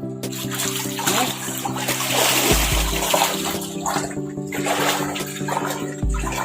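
Background music with steady held tones and a deep bass hit about every three and a half seconds, over water splashing and sloshing.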